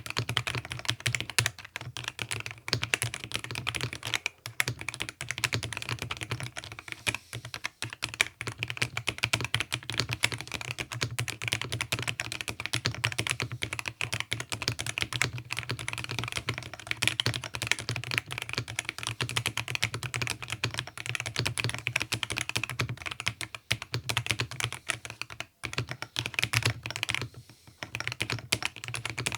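Continuous fast typing on a Keychron P6 Ultra 8K full-size aluminum mechanical keyboard, a dense run of keystroke clacks broken by a few short pauses, picked up through a phone's microphone.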